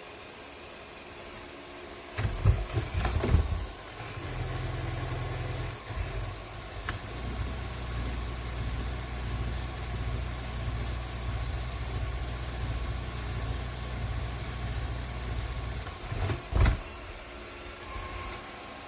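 Robot vacuum-mop and its base station running with a steady low motor hum, set off by a cluster of clunks and rattles about two seconds in and another near the end.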